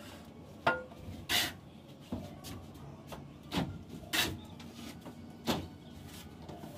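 Mason's steel trowel scraping and knocking as cement plaster is worked onto a concrete ceiling and scooped from a mortar pan: about six short scrapes and knocks, a second or so apart.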